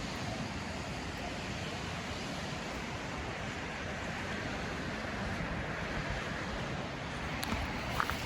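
Steady rushing of ocean surf and wind, with a couple of faint clicks near the end.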